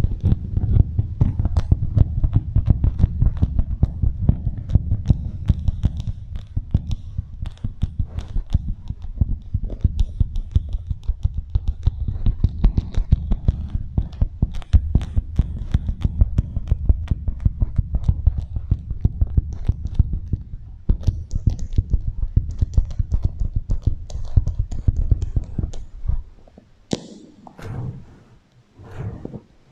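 Rapid, irregular crackling and tapping of a beeswax wrap worked on a microphone to imitate rain, over a heavy low rumble and with an echo effect. It thins out about 26 seconds in, with one sharp click shortly after.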